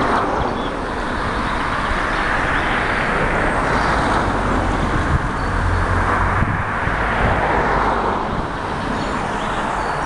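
Road traffic noise rising and falling as vehicles pass, with a deeper rumble through the middle and a few faint bird chirps.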